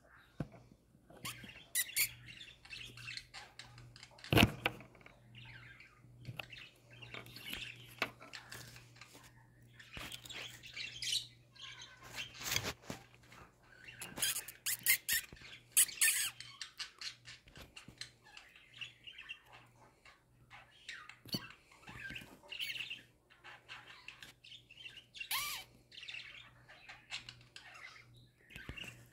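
Several caged budgerigars chattering: a continuous stream of short chirps, warbles and squawks. Two sharp clicks or knocks cut through, the loudest about four seconds in and another around twelve seconds.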